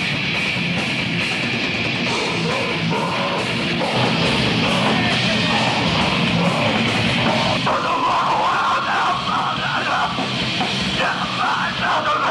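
Live heavy metal band playing, with distorted electric guitar and a drum kit. A vocalist's voice comes in over the band about eight seconds in.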